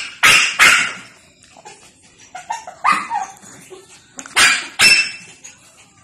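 Shih Tzu puppy giving short, sharp barks in pairs: two loud ones just after the start and two more about four and a half seconds in, with softer short sounds in between.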